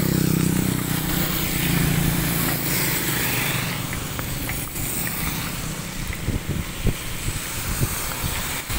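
Heavy rain hissing steadily on a wet road, with a motor vehicle engine running through the first two or three seconds. Near the end, a few low bumps hit the microphone.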